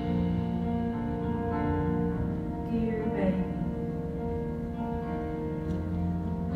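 Stage musical's pit band playing slow instrumental music, held chords that change every few seconds.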